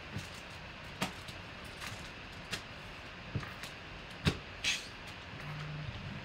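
Steady background hiss with a handful of short, sharp clicks and knocks scattered through it, the loudest about four seconds in, and a brief low hum near the end.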